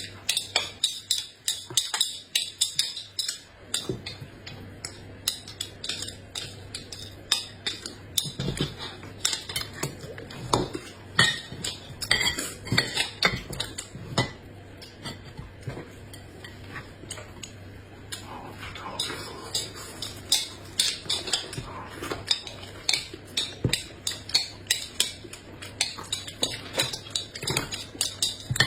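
Utensils clinking and scraping against dishes: many light, irregular knocks and clicks that go on without a break.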